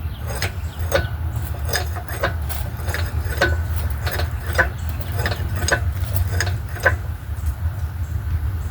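A string of sharp metallic clicks and taps, roughly one every half second, over a steady low rumble, as from hand tools working on metal parts.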